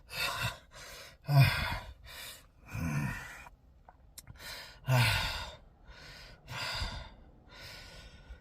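A man's involuntary hiccups, a run of short voiced bursts about once a second, several with a falling pitch. They come from chronic intractable hiccups caused by nerve damage.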